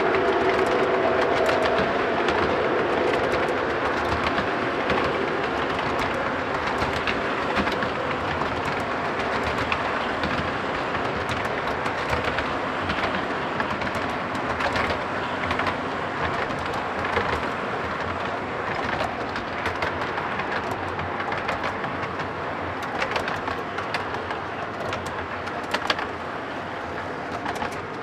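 O gauge model train's auto rack cars rolling along the track: a steady rumble with scattered clicks at the rail joints, gradually getting quieter as the cars pass, with a sharper click near the end.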